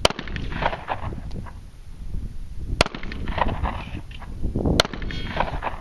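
Three single shots from a semi-automatic handgun, each a sharp crack, fired slowly about two seconds apart.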